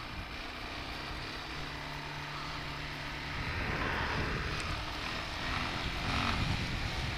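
1989 Yamaha Moto 4 250 ATV's single-cylinder four-stroke engine running steadily under way, a low steady hum; about halfway in, a louder rushing noise builds over it.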